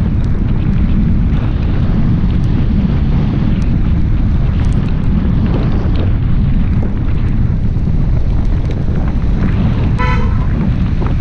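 Steady heavy wind rush on the microphone of a camera mounted outside a moving car, with the low rumble of the car running on a wet road. About ten seconds in, a car horn gives one short toot.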